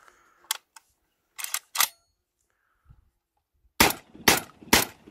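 Maestro semi-automatic shotgun firing 24-gram loads in quick succession: three loud shots about half a second apart near the end, after a few sharp metallic clicks of the gun being handled and readied. The action cycles each light load without a hitch.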